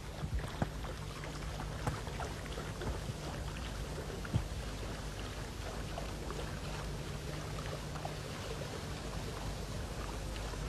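Water splashing and lapping as a German Shorthaired Pointer swims through shallow, snag-filled water on a retrieve, with a couple of sharper splashes, over a steady low hum.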